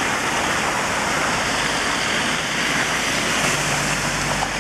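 A steady, loud rush of heavy rain and floodwater running over the street.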